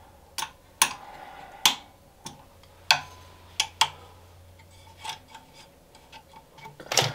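Allen key clicking against small screws and the aluminium bracket of an LED light bar as the screws are tightened: a dozen or so short, sharp, irregular clicks, the loudest near the end.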